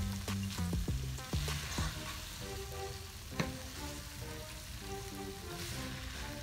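A wooden spoon stirs a ground-meat and fruit filling that sizzles in a pot. The spoon knocks against the pot several times in the first two seconds and once more about three and a half seconds in. Background music plays underneath.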